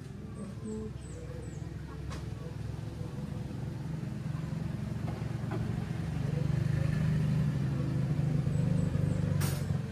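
A motor vehicle engine running steadily, growing louder over several seconds and then dropping away, with a sharp click near the end.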